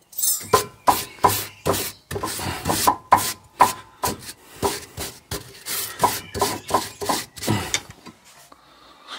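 Repeated scraping strokes of a hand brush on the rusty rear brake parts of a van, about two to three strokes a second, stopping about eight seconds in.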